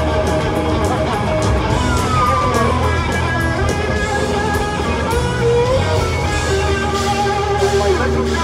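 Live rock band playing an instrumental passage led by an electric guitar solo on a Les Paul-style guitar, over drums and bass. A falling slide comes about two seconds in and a rising bend about five and a half seconds in.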